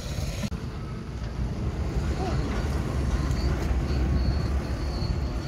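Steady low rumbling noise of wind buffeting the microphone outdoors, with no clear crackle or bangs.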